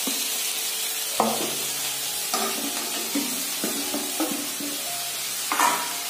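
Ragi vermicelli and vegetables sizzling in a hot pan while being tipped in and stirred with a wooden spatula, with a steady frying hiss.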